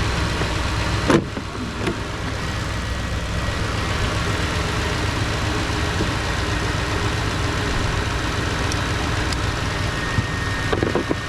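2011 Toyota Tundra's 4.6-litre V8 idling steadily, running again after its blown fuses were replaced. A single short knock about a second in.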